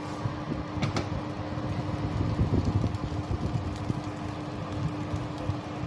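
Convection oven fan running with a steady hum, heard through the open oven door. There are a couple of faint clicks about a second in.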